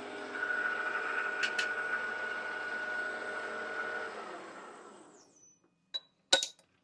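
Deckel FP2 milling machine running with a steady hum and a whine, then switched off and running down to a stop about four to five seconds in. Two sharp clicks follow near the end.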